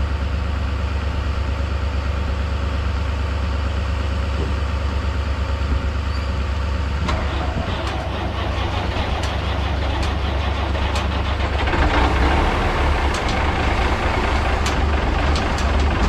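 Jump-starting a truck with dead batteries from a running pickup: an engine idles steadily, about seven seconds in the sound changes as the truck is cranked, and about twelve seconds in it gets louder as the truck's engine catches and runs, with some sharp clicks.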